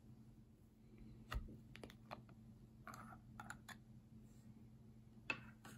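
A metal screw lid being twisted off a small glass jar and the jar handled, giving a scatter of light clicks and knocks; the loudest, a knock with a low thump, comes about a second and a half in.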